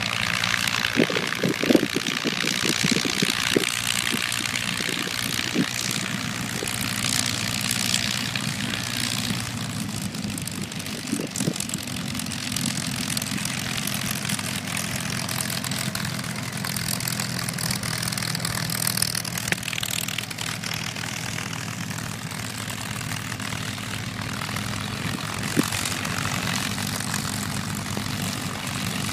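P-51 Mustangs' Packard Merlin V-12 engines running steadily at taxi power, with the propellers turning over, as the fighters taxi past one after another. A few brief low thumps come near the start and once about eleven seconds in.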